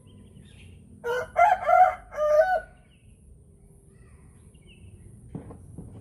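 A rooster crowing once, a full cock-a-doodle-doo in four quick parts, starting about a second in and lasting under two seconds.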